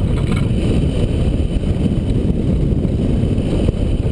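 Wind rushing over the microphone of a camera mounted on a hang glider during its launch run and first seconds of flight: a loud, steady low rumble, the sound of the glider's airspeed.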